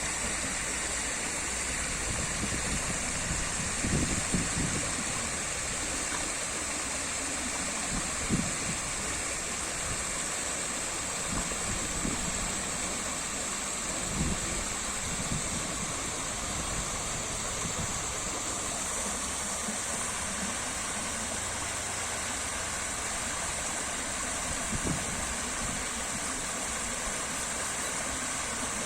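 Water running steadily in a stream or small waterfall, a continuous rushing hiss with a few brief low gurgles and thuds.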